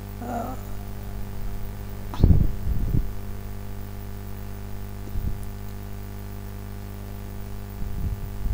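Steady electrical mains hum with its overtones, broken by a few short low thumps: the loudest about two seconds in, a smaller one around five seconds, and more near the end.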